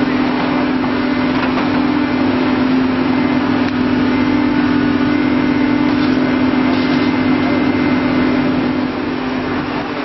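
Excavator's diesel engine and hydraulics running steadily under load with a constant low drone while its tie inserter attachment works a railroad tie, easing slightly near the end.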